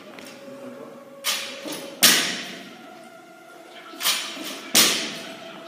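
Loaded barbell with bumper plates clanking as it is lifted, with the lifter's feet landing on rubber gym flooring during repeated reps: four sharp impacts in two pairs, the loudest about two seconds in.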